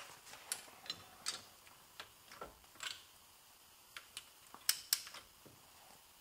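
Light metallic clicks and ticks of hand tools on bolts, a dozen or so at uneven intervals, with two sharper clicks about three-quarters of the way through.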